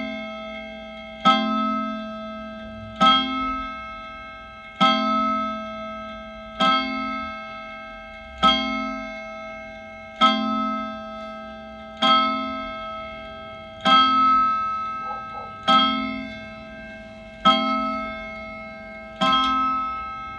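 AMS R2614/1 8-day mechanical wall clock striking the hour on its gong: the same ringing note struck slowly about every two seconds, each stroke fading before the next. Its hands stand at twelve, so it is striking twelve.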